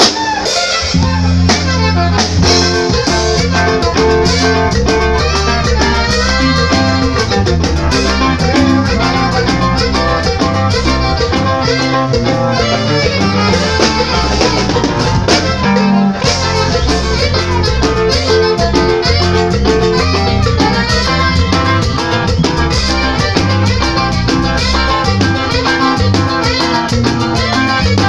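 Live band playing Latin dance music, with the drum kit prominent alongside guitar.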